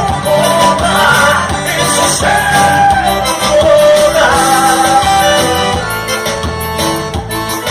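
Live band music: an instrumental passage in which a gliding lead melody plays over a steady bass line, with no sung words.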